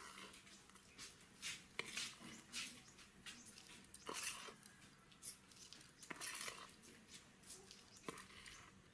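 Faint scraping and light clinks of a steel spoon stirring a dry, coarse-ground flattened-rice and peanut powder on a steel plate, in scattered irregular strokes.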